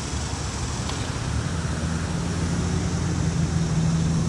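Steady low rumble of road traffic, with a low hum that comes in and grows louder about a second and a half in.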